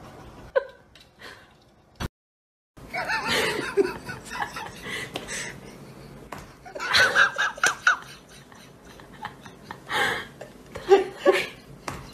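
A person laughing in bursts while an open hand pats and slaps a cat's back, starting about three seconds in after a brief gap.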